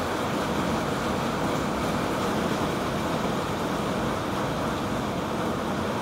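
A steady rushing noise, strongest in the low and middle range, with no distinct events.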